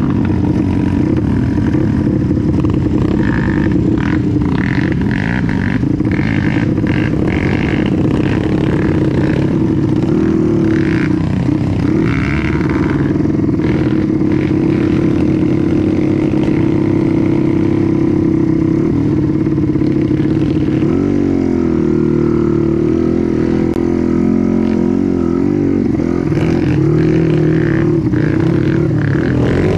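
Trail motorcycle engine running under throttle, its pitch mostly steady, easing off and climbing back about two-thirds of the way through, with scattered knocks and rattles in the first half.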